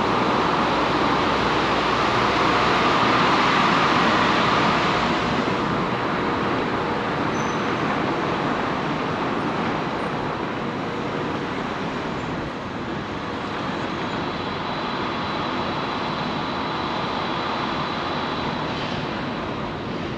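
Steady city traffic noise, a rushing sound that swells over the first few seconds as a vehicle passes, then eases and holds steady.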